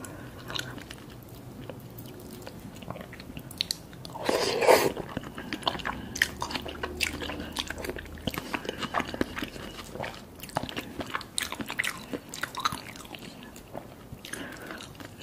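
Close-miked eating sounds of soft-boiled eggs in a spicy sauce: wet chewing with many short mouth clicks and smacks, and one longer, louder mouth sound about four seconds in.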